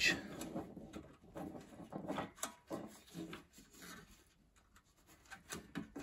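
Quiet rustling and small clicks of hands handling insulated wires and crimp terminals inside a sheet-metal housing, with a near-silent pause about four seconds in.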